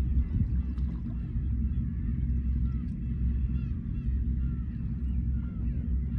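Black-tailed gulls calling, many short calls from several birds overlapping, over a steady low rumble of waves.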